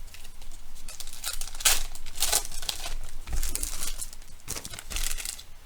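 Trading card pack wrappers being torn open and crinkled by hand: irregular sharp rustling crackles.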